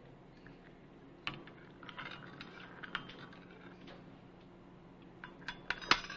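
Light clinks and taps of cups, saucers and cutlery on a breakfast table, scattered and sparse, then a quick run of clinks near the end, the loudest just before it ends.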